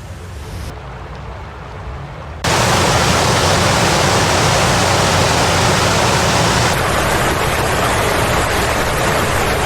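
Rushing floodwater: a steady rush of noise with no distinct events, quieter at first and then abruptly much louder about two and a half seconds in.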